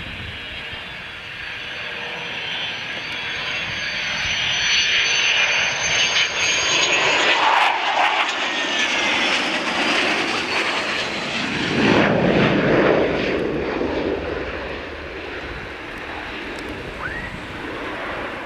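F-16 fighter's single Pratt & Whitney F100 turbofan on landing approach with the gear down: a high jet whine that climbs a little in pitch as it comes in, then a loud low rumble as it passes about twelve seconds in, easing off afterwards.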